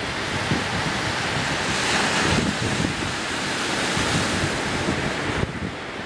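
Sea surf washing on the shore, with wind buffeting the microphone; the wash swells briefly about two seconds in.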